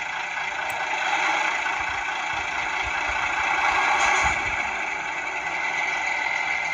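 Diesel railcar (DMU-style) engine sound running steadily from a model locomotive's ESU LokSound V4 Micro DCC sound decoder through its small speaker. It is the decoder's original default file, the wrong one for this steam pannier tank.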